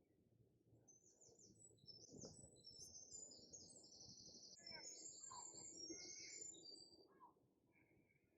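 Faint birdsong: high, quick chirps and rapid trills from about a second in until near the end, over a low background hum.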